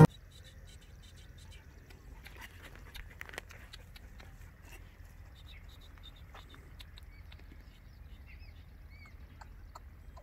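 Faint outdoor sound of a dog sniffing and nosing at a burrow hole in sandy ground, with scattered small clicks. Small birds chirp now and then, more often in the second half, over a low steady rumble of wind on the microphone.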